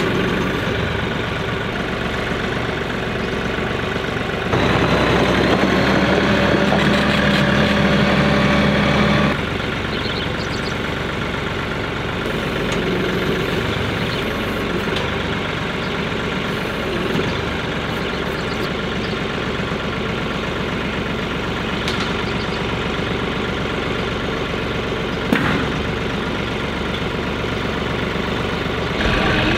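Kioti DK5310 compact tractor's diesel engine running steadily while it lifts a feed tote of about 2,100 pounds with its front-loader forks. About four seconds in the engine note grows louder and steadier for about five seconds, then settles back.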